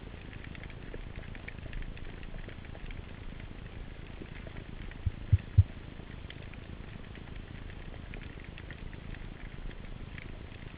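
Underwater ambience picked up by a camera in a housing: a steady low hiss with scattered faint clicks. About five seconds in come three short, dull low thumps in quick succession.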